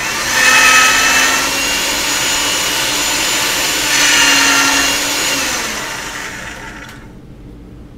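A small electric motor switches on suddenly and runs for about seven seconds, then winds down near the end with its hum dropping in pitch as it fades.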